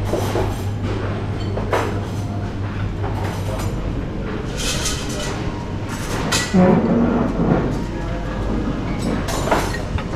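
Busy breakfast-room ambience: a steady low hum under short bursts of dish and cutlery clatter, with indistinct background voices.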